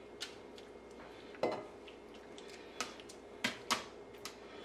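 Metal kitchen tongs clicking against a wire cooling rack as pieces of marinated pork are set down: a handful of separate light clicks, one of the loudest about a second and a half in.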